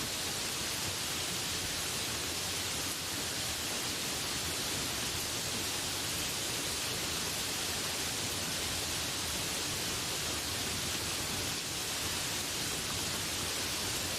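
Steady rainfall: an even, unbroken hiss with no separate drops or other sounds standing out.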